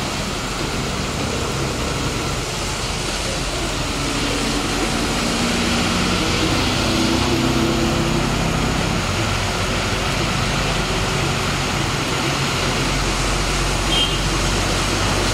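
Heavy rain and tyres on a flooded road, a steady dense hiss, with the engine of a heavy vehicle such as a truck or tractor running and growing louder through the middle.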